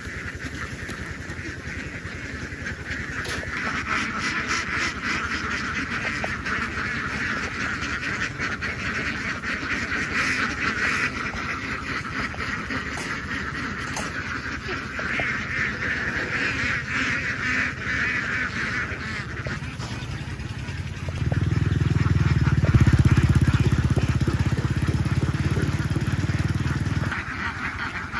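A large flock of domestic ducks quacking all together in a dense, continuous chatter. About three-quarters of the way through, a loud low rumble comes in over the flock for about six seconds and then cuts off suddenly.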